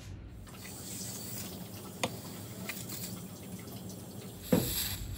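Butane hissing as it is pushed from a lighter-gas refill can through its nozzle into a Thermacell cartridge's valve. A click comes about two seconds in, and a louder knock near the end.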